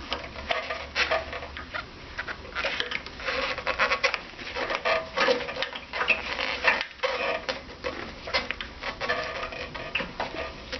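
Irregular light clicks, taps and scrapes of hand tools and small metal parts as the fuel hose is worked off a snowblower's carburettor.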